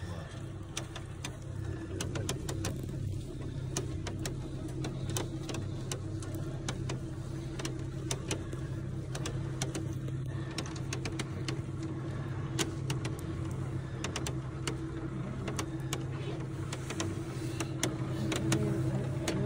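Electric motor of an open cable lift running with a steady hum, with frequent sharp clicks and rattles from the lift's metal frame.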